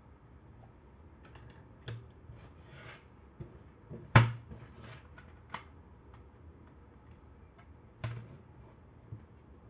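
Sharp plastic clicks and knocks from a CD jewel case being handled. The loudest is a single snap about four seconds in as the case is closed. Smaller taps follow, one just after eight seconds, as the case is laid down on the wooden table.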